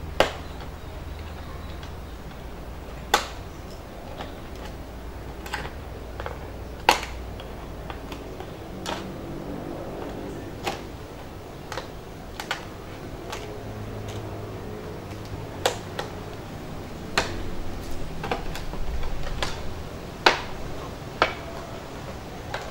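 Scissors snipping through the thin plastic wall of an empty water bottle, each cut a sharp click, about ten of them at irregular intervals.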